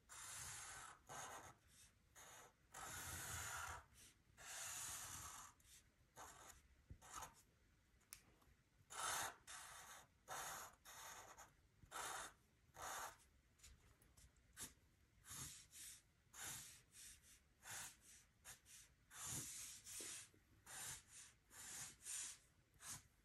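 Sharpie fine-point marker drawing on paper: a long series of faint scratchy strokes, some short and some longer, with brief pauses between them.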